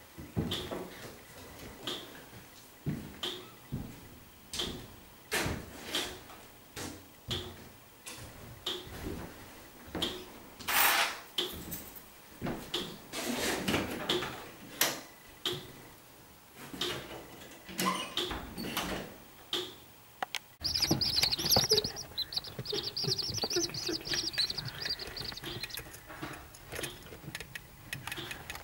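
A steady series of short knocks, roughly one every three-quarters of a second, then, after a sudden change near the end, rapid, continuous high peeping from a week-old corncrake chick.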